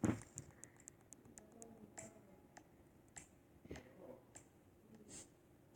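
Slime worked by hand, giving off a scattered string of small sticky pops and clicks, with a louder handling thump at the very start.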